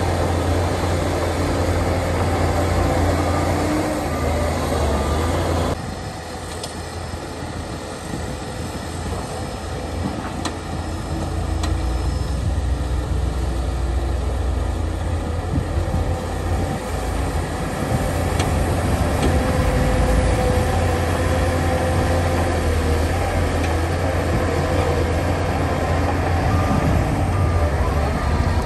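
Heavy diesel engines of earthmoving machines running steadily: a Shantui crawler bulldozer pushing soil and a tipper dump truck with its bed raised, unloading. The sound changes abruptly about six seconds in.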